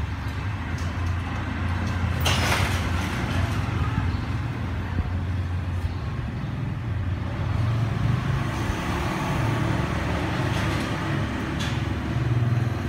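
Steady low rumble of a motor vehicle engine running, with a brief noisy rush about two seconds in.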